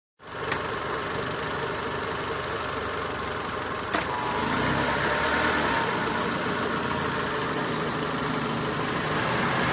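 2003 Mitsubishi Lancer's four-cylinder engine idling steadily, with a sharp click about four seconds in.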